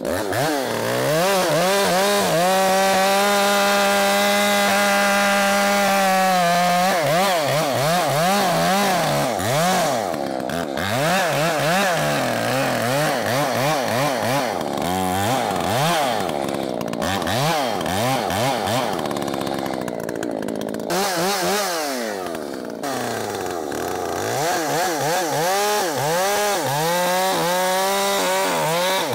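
Two-stroke chainsaw with a freshly sharpened chain cutting wood at full throttle. Its pitch holds high and steady for a few seconds, then repeatedly dips and recovers as the chain loads in the cut, falls off briefly about three quarters of the way through, and climbs back up.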